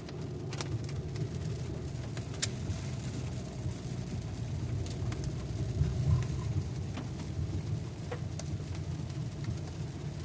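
Steady low road-and-engine hum inside a moving car's cabin, with a few faint sharp ticks scattered through it.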